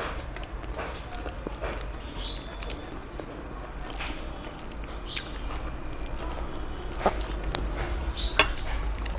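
Fingers mixing and squeezing rice on a stainless steel plate: soft squishing and scraping with scattered sharp clicks against the metal, the loudest two near the end, over a steady low hum.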